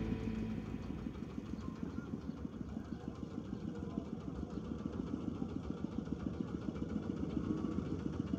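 A small engine idling nearby, running steadily with a rapid, even pulse.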